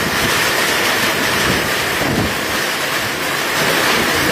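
Heavy rain mixed with hail pelting down, a steady loud rush.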